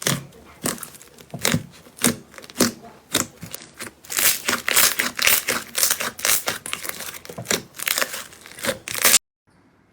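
Slime being squeezed and pressed by hand, giving a fast run of crackling pops and clicks that grows denser about four seconds in and stops suddenly near the end.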